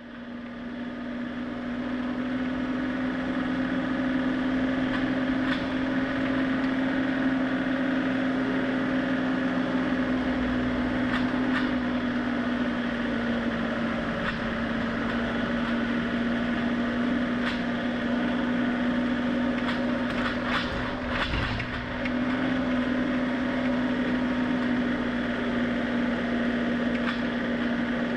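John Deere compact tractor's diesel engine running at a steady speed as the tractor drives along a rough trail, heard close up with one unchanging drone. A few light rattles and knocks come through, most of them a little past two-thirds of the way in.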